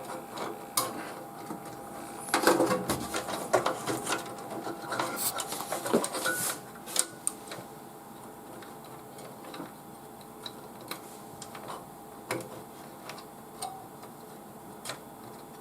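Scattered small clicks and rattles of a fan cable's plastic 4-pin connector being handled and pushed onto a motherboard fan header, busiest in the first half. A faint steady hum runs underneath.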